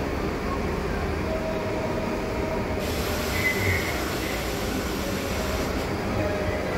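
New York City subway train standing at an elevated platform, with a steady hum and rumble from its running equipment. A hiss comes in a little under three seconds in, with a brief higher whine just after.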